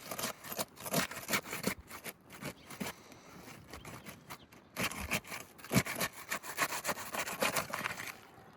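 Asphalt roof shingles being pried up off their sealant strips: crackly scraping and clicking in two runs, the first three seconds or so and again from about five seconds in, with a pause between. The sealant is still bonded tight enough to tear mat from the shingles as they come up.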